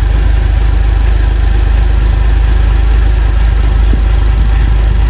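Chevrolet Silverado pickup engine idling steadily, just after being started.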